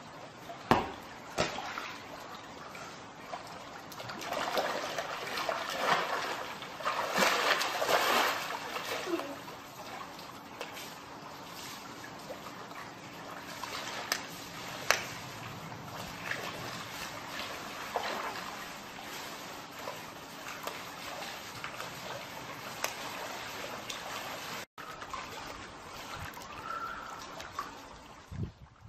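Water splashing and sloshing in a swimming pool as a child wades through it. The splashing is loudest between about four and nine seconds in, then settles into steadier lapping and trickling. Two sharp knocks come about a second in.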